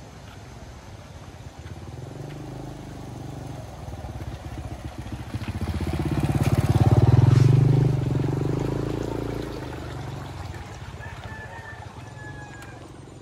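Small motorcycle riding past: its engine grows louder as it approaches, is loudest about seven seconds in as it goes by close, then fades away.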